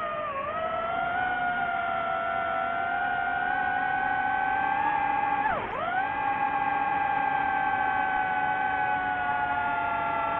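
DJI FPV drone's motors and propellers whining with a steady pitch that wavers slightly. It sags briefly near the start, then a little past halfway drops sharply and climbs straight back up.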